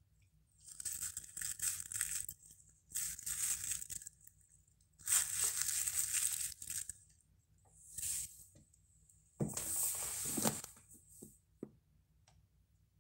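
Handling noise: about five short bursts of scratchy rustling as hands move a resin figurine about on an artificial grass mat. The last burst, about nine and a half seconds in, has a few duller knocks in it.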